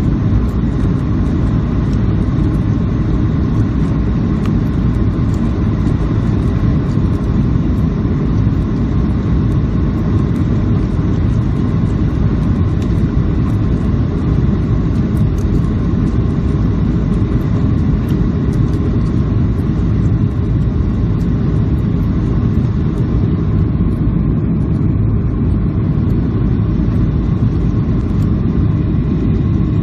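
Steady, loud cabin rumble of a Boeing 737-800 heard inside the cabin: the CFM56-7B turbofan engines and rushing airflow, with a faint steady whine above the low drone.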